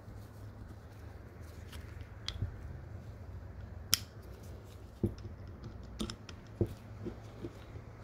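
Scattered small metal clicks and taps as parking brake shoes and a star-wheel adjuster screw are handled and fitted together, the sharpest click about four seconds in, over a low steady hum.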